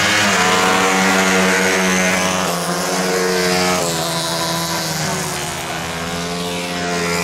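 Engines of several CG-class racing motorcycles running hard, the engine notes climbing in pitch and dropping sharply about two and a half and four seconds in as they change gear and go past.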